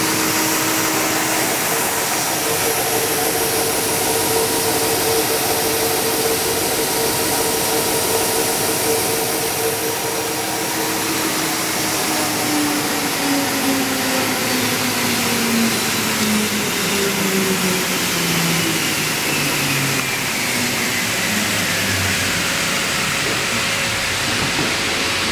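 Timesaver Speedbelt wide belt sander with a 20 hp motor, its sanding head and conveyor feed belt running with a loud, steady whir and hum. From about halfway through, a hum tone slowly falls in pitch while the overall noise stays level.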